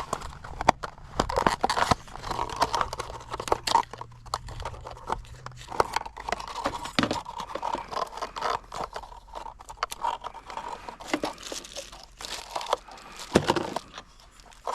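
Close hand-work noises: crinkling and scraping with scattered sharp clicks and knocks, the sound of parts being handled and fitted. A faint low hum stops about six seconds in.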